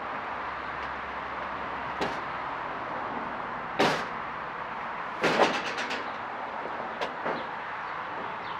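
Knocks and clatter of a thin wooden board and a window evaporative cooler being shifted, over steady background noise. A single loud knock comes near four seconds in, and the loudest part is a quick rattle of several knocks about five seconds in, which fits the board falling over.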